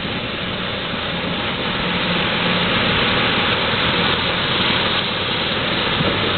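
Golf cart driving in heavy rain, a steady rushing of rain, wind and water with a faint low motor hum underneath, growing slightly louder.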